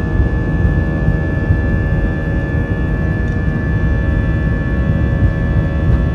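Airbus A319's IAE V2500 turbofan engines heard from inside the cabin at low power: the 'engine symphony', a steady cluster of droning tones over a deep rumble.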